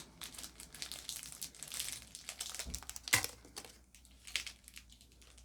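Crinkling plastic packaging as makeup brushes are handled and drawn out, with one sharper crackle about three seconds in.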